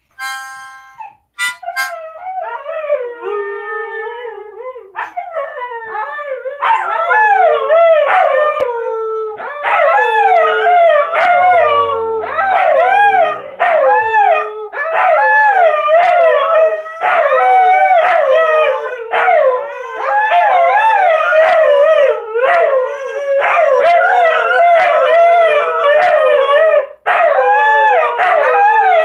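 Several Siberian huskies, a puppy among them, howling together, their voices wavering up and down and overlapping. It starts thinner and swells about six seconds in to a loud, nearly unbroken group howl.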